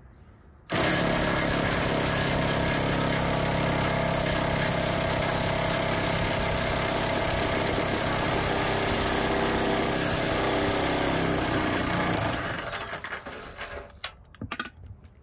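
Corded electric impact wrench starting abruptly and running steadily for about eleven seconds as it backs a long bolt out of the car's underbody, then winding down, followed by a few light clicks near the end.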